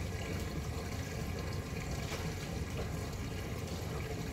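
Steady running water splashing and trickling, from the circulation of an open-top aquarium.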